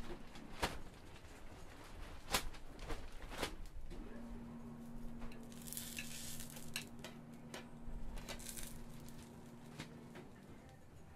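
Kitchen handling sounds: scattered sharp clicks and knocks of utensils and dishes, with a steady low hum from about four seconds in to about ten seconds, and a brief hiss around six seconds.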